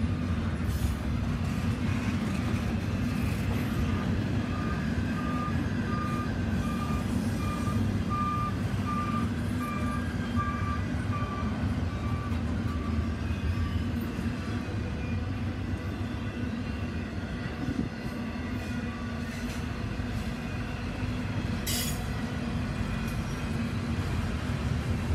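Intermodal freight train rolling past with a steady low rumble of wheels on rail, under the back-up alarm of a reversing railroad maintenance truck beeping about twice a second from a few seconds in until about halfway, then fading out.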